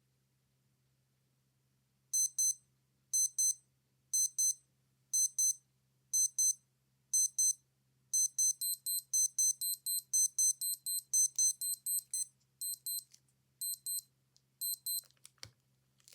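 Digital wristwatch alarm beeping, high-pitched and electronic. It starts about two seconds in as double beeps roughly once a second, changes about eight seconds in to a fast continuous run of beeps, then returns to spaced double beeps. A single click comes near the end.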